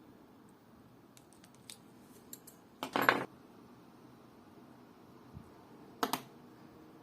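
Small metal watchmaking tools clicking and scraping on a watch at the bench: a few light ticks, then a short louder clatter about three seconds in and another near six seconds.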